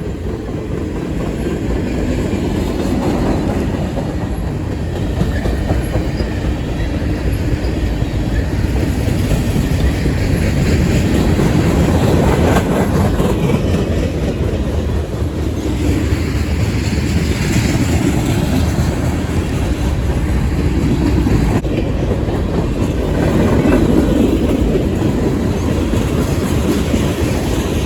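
Freight train cars rolling steadily past, steel wheels clicking over the rail joints over a continuous rumble.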